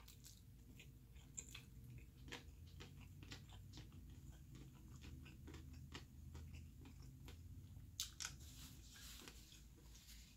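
Faint mouth sounds of a person chewing noodles: many small irregular wet clicks, with a louder brief noise about eight seconds in.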